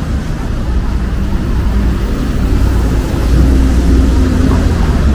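City street ambience: a steady low rumble of passing road traffic, swelling slightly about three seconds in.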